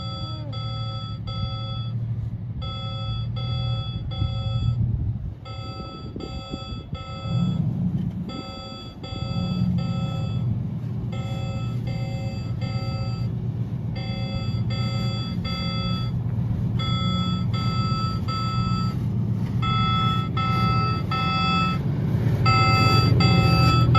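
Heavy-equipment backup alarm beeping in quick groups of about three with short gaps, over the steady low running of a diesel engine.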